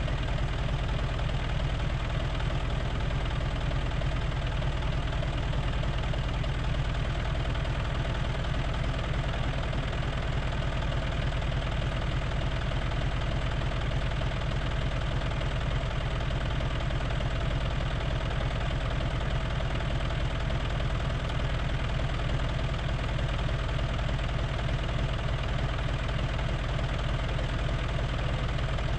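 Farm tractor's diesel engine running steadily at a constant speed, with a laser land-leveller hitched behind.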